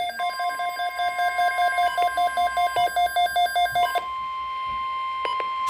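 NOAA Weather Radio warning alarm tone, a steady single tone near 1 kHz, heralding a flood watch broadcast. For the first four seconds a weather radio receiver's rapid alert beeping sounds over it, then stops.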